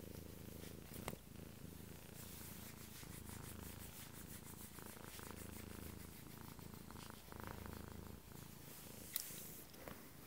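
Domestic cat purring steadily and faintly, close up while being stroked on the head and chin, with a couple of brief clicks about a second in and near the end.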